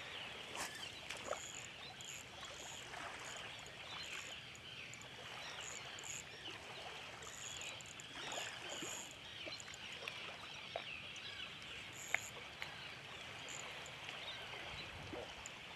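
Small waves lapping at the shoreline, with a few sharp ticks and clicks, one standing out about 12 seconds in.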